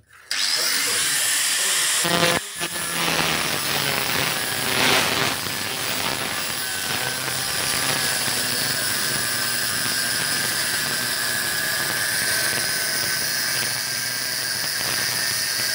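Angle grinder cutting metal under the car, cutting off a very seized part of the exhaust. A steady high whine and grinding noise, with a short dip about two and a half seconds in.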